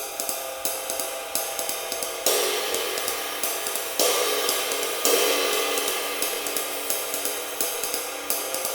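Ride cymbal played with a drumstick in a jazz swing ride pattern, with three fuller accents about two, four and five seconds in, struck as a glancing blow across the cymbal with the shoulder of the stick to open up the sound. Near the end the playing stops and the wash fades away.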